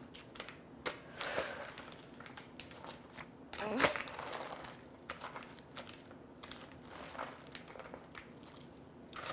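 Salad being tossed with tongs in a bowl: romaine leaves and croutons rustling and crunching, with irregular light clicks and scrapes of the tongs, louder once about a second in and again near the middle.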